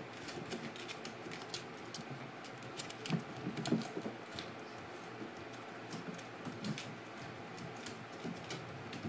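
Chihuahua puppy's claws clicking irregularly on a hardwood floor as it scrambles and plays with a small ball. A few louder knocks come about three to four seconds in.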